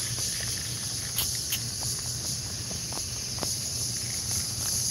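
A steady, high-pitched chorus of evening insects, with scattered light clicks and a low rumble underneath.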